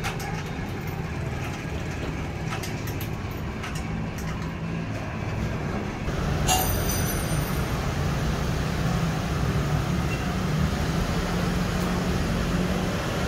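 Hand-cranked gear mechanism of a kinetic automaton sculpture running: a steady mechanical rumble with a low hum and scattered clicks, getting louder about six seconds in, with one sharp click just after.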